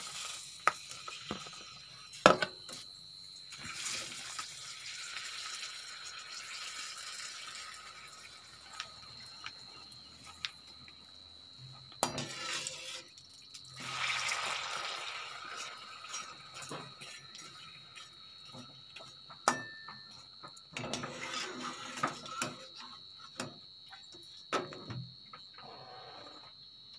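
Pappadam frying in hot oil in an aluminium kadai: a sizzling hiss that swells several times as discs go into the oil and puff up. Sharp clinks and knocks of a steel slotted spoon against the pan.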